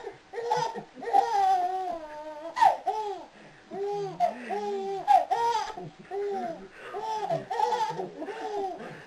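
Baby laughing in a string of short, high-pitched bursts, about two a second.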